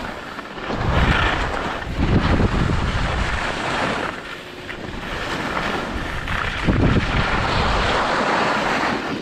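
Wind rumbling over a GoPro's microphone during a downhill run on a snowy slope, surging and easing every second or two, mixed with the hiss of snow sliding underneath.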